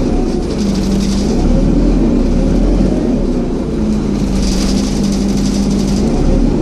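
Scania N230UD double-decker bus's engine running with its radiator cooling fan whirring. A steady hum drops out and comes back, about a second in and again near the four-second mark, over a constant rumble and hiss.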